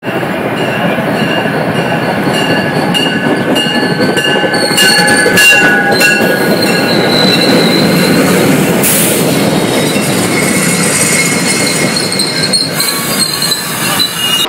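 A train passing close by at speed: a loud, steady rumble of wheels on the rails, with high squealing tones from the wheels drifting over it.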